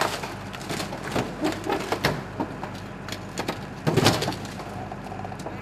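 Irregular clatter and knocks, loudest in a burst about four seconds in, over the steady low hum of an idling engine.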